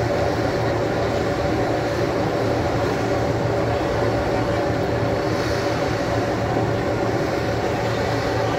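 Steady engine drone of a fire engine running, with an even rushing noise underneath.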